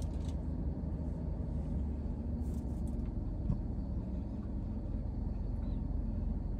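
Steady low hum of an idling car, heard from inside the cabin.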